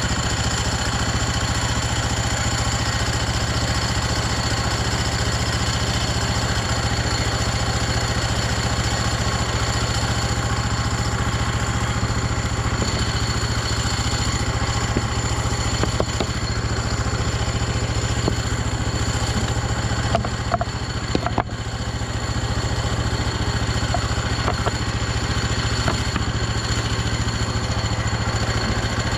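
Engine of a Hudson HFE30 bandsaw sawmill running steadily, with a few light ticks and a brief dip in level about two-thirds of the way through.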